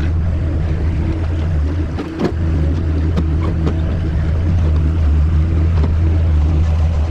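Skid steer's diesel engine running steadily, with several sharp metallic clanks about two to six seconds in, typical of the bucket working broken asphalt.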